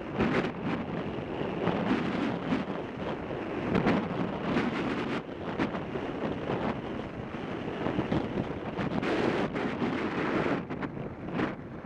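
Wind buffeting the microphone during a road-bike ride, a steady rush broken by uneven gusts.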